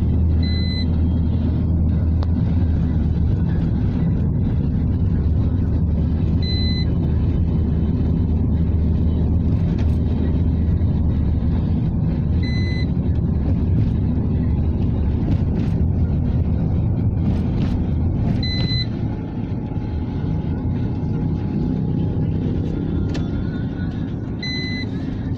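Steady low rumble of road and engine noise from a car driving along. A short electronic beep repeats evenly about every six seconds.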